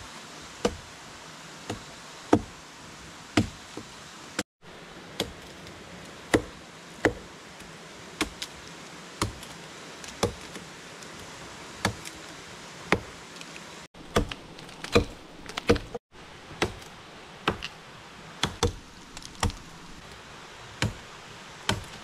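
Machete blade chopping into a wooden stick: sharp, irregular knocks about once a second, over the steady rush of a river.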